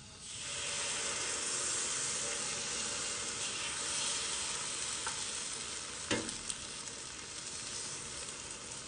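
Takoyaki batter sizzling in the hot oil of a takoyaki pan as it is ladled into the wells. The sizzle starts sharply as the first batter goes in and carries on steadily, with a light knock about six seconds in.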